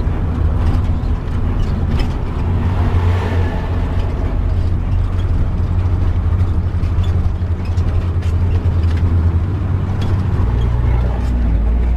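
Bus engine running with road noise while the converted-bus motorhome drives along a highway; its steady low hum drops to a lower pitch near the end.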